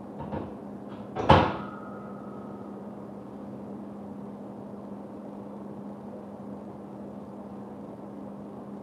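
A few light knocks, then a loud metallic clank about a second in as the thick pull-up bar on a wall-mounted power rack takes a man's hanging weight; the bar rings briefly. After that only a steady low hum.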